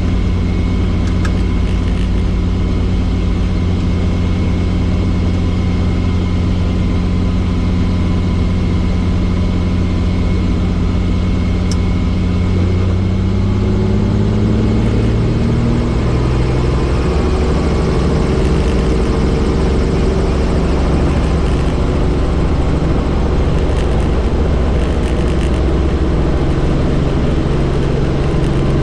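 Helicopter engine and rotor running with a steady low hum. About halfway through, the pitch rises and the sound grows slightly louder and rougher as the engine speed comes up.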